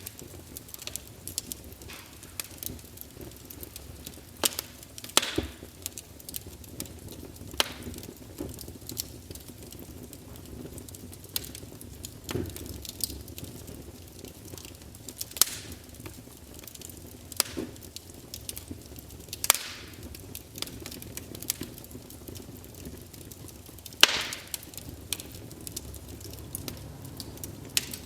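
Campfire burning wood: irregular crackling and sharp pops over a low steady rumble of the flames, with an occasional louder snap.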